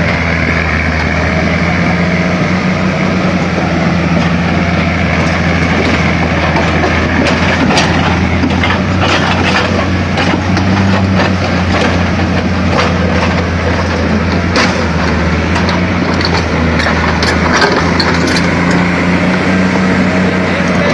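Crawler tractor's diesel engine running steadily as it moves along a dirt track hauling pine logs, with scattered clicks and cracks through the middle stretch.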